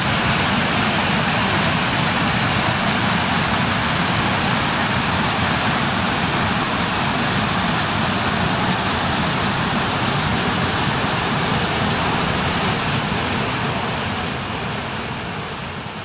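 Water of a small waterfall and mountain stream rushing in a steady, loud hiss of falling and flowing water that fades out near the end.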